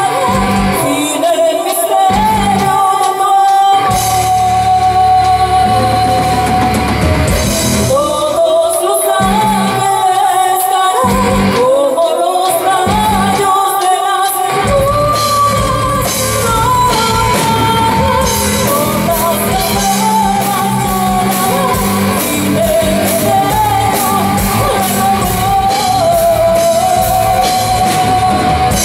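A live rock band playing a song with singing over keyboards, bass guitar and drums, heard loud in a large club room. In the first half the bass and drums break off several times and come back, then the full band plays on steadily.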